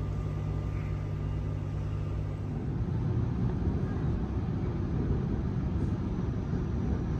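Steady low hum of an electric train standing at the platform, which changes about two and a half seconds in to an even low rumble.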